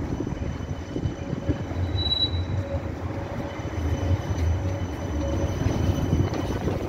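V3A-2010 articulated tram rolling past on a curve, its wheels rumbling over the rails. A short high wheel squeal comes about two seconds in, and faint steady high whines run under the rumble.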